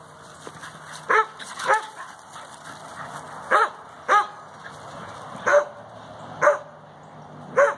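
A dog barking in play while the dogs chase each other: seven short, sharp, fairly high barks, mostly in pairs, a second or two apart.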